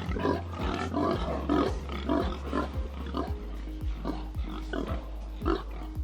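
Pigs grunting and squealing over background music with a steady beat.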